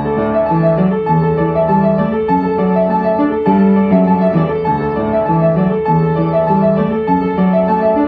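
Background piano music: a calm tune of held notes moving step by step in a repeating pattern.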